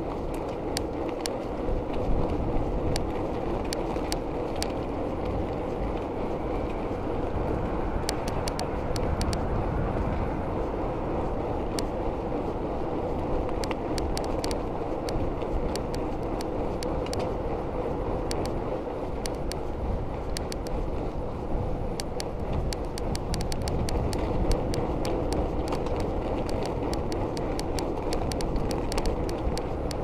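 Bicycle, a 1997 Giant Iguana 650b commuter, riding at a steady cruising speed: a continuous rush of tyre and wind noise with frequent irregular clicks and rattles.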